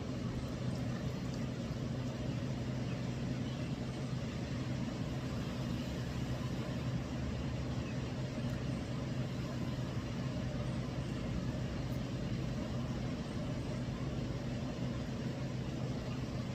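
Steady outdoor background noise of rain and passing road traffic, with a low steady hum underneath.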